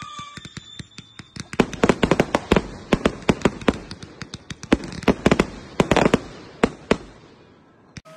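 Fireworks display: a rapid barrage of aerial shells launching and bursting, many sharp bangs in quick succession, thinning out to a few last reports near the end.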